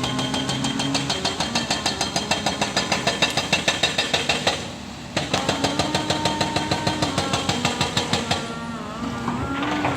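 Excavator's diesel engine running with a rapid, regular pulsing beat and a steady hum, dropping briefly in level about halfway through and again near the end.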